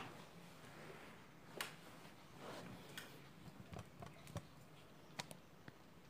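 Near-quiet room with a few faint, scattered clicks and light taps, about half a dozen, over a faint low hum.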